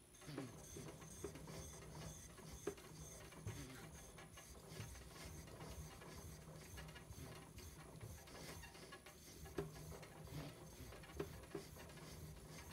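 Faint, soft scraping of a blue-steel deba knife rubbed on a wet suita natural whetstone, with scattered light clicks: polishing the blade toward a hazy kasumi finish on the wrought iron.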